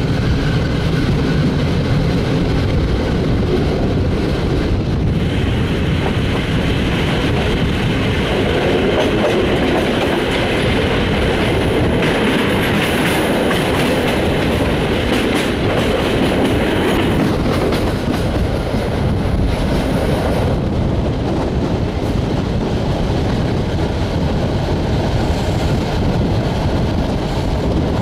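Passenger train carriage rolling along the track, heard at an open window: a steady rumble of wheels on rails. From about five seconds in to about twenty seconds in it turns brighter, with a run of clickety-clack knocks as the wheels cross a set of points.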